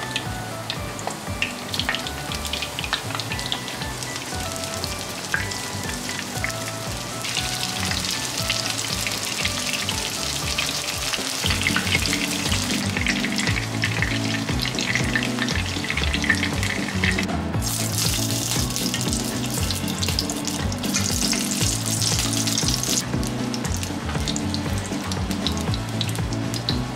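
Eggplant pieces, then shishito peppers, shallow-frying in olive oil in a frying pan: a continuous sizzle that grows louder and hissier as the pan fills, with a few abrupt changes in loudness.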